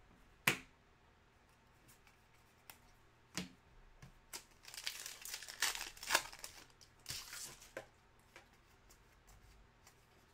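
Foil wrapper of a Panini Contenders basketball card pack being torn open and crinkled, in a run of crackling from about halfway through that lasts some three seconds. A couple of sharp taps come before it.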